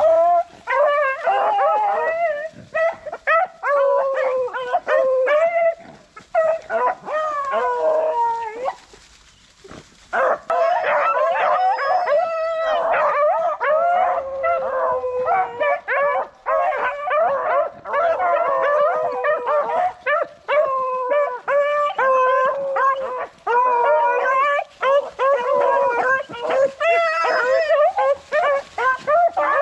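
A pack of beagles baying on a rabbit's scent trail: many overlapping howling voices, with a short lull about nine seconds in.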